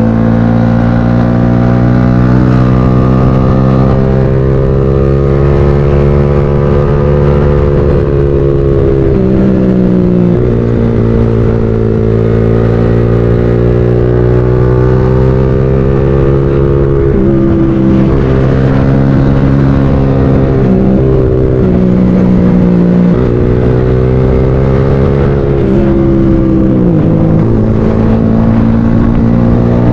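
Motorcycle engine running under way, its pitch climbing and dropping several times as the rider opens and closes the throttle.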